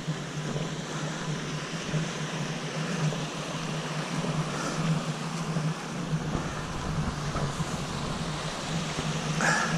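Small moorland stream running over rocks, a steady rushing, with a steady low hum underneath and a brief louder noise near the end.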